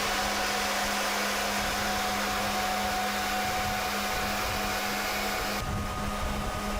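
A machine running steadily with an even hum and hiss; the hiss drops away a little over five seconds in.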